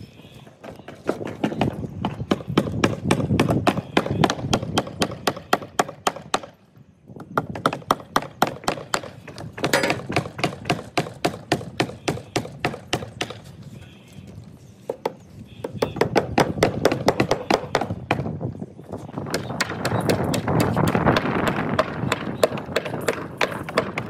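Hammer driving nails into wooden formwork planks in a rapid, steady rhythm of about four blows a second, with a couple of short pauses.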